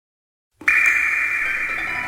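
Silence, then about half a second in a Samsung SGH-D500 polyphonic ringtone starts abruptly: a high, held synthesized tone over other notes that begin stepping downward near the end.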